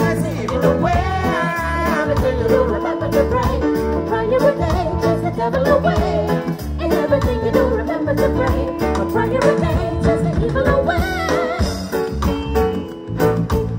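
Live reggae band playing with a steady beat and heavy bass while a male lead singer sings into a microphone.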